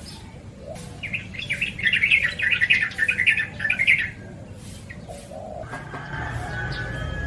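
Yellow-vented bulbul singing a fast run of short chattering notes for about three seconds, starting about a second in. A low rumble comes up near the end.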